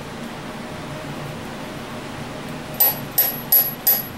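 A steady low hum, then from about three seconds in a run of sharp metallic clicks, about three a second. The clicks come from an oiled valve in a Chevy 350 cylinder head being spun and worked in its guide, tapping against its seat.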